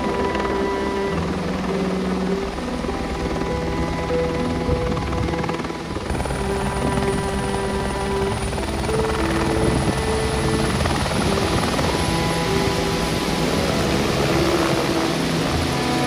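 Helicopter noise: a steady mechanical rotor sound, with a thin high whine that comes in about six seconds in and slowly rises, mixed with background music of slow held notes.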